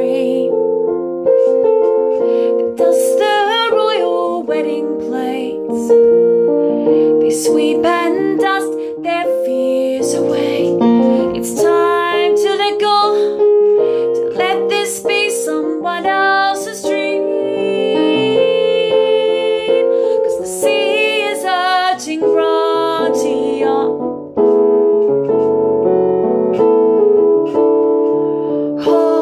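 A woman singing a slow song to her own piano accompaniment, the piano playing sustained chords throughout while her voice comes in and out in phrases, some held notes wavering with vibrato.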